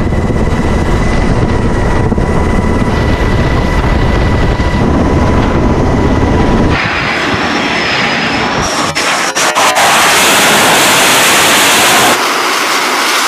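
Jet aircraft noise on an aircraft carrier's flight deck. It opens as a low, steady rumble with two faint steady tones, then about seven seconds in it changes abruptly to a loud, even jet-engine roar, with a few sharp clicks around nine seconds and another abrupt change near the end.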